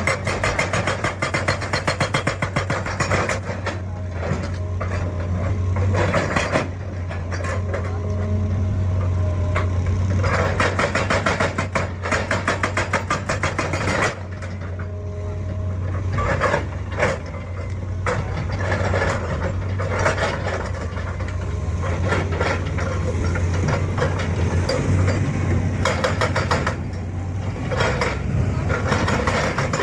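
Heavy diesel machine engine running steadily: a constant low drone with a dense rattle over it that comes and goes.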